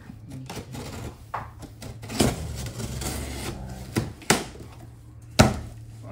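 Knife slicing through the packing tape on a corrugated cardboard shipping box, then the cardboard flaps being pulled open and folded back. Scraping throughout, with a few sharp knocks of the cardboard, the loudest near the end.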